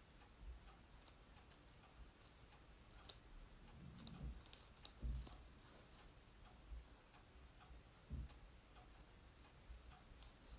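Faint, scattered snips and clicks of small scissors cutting through wet-felted wool down to the template, with a few soft low bumps of handling.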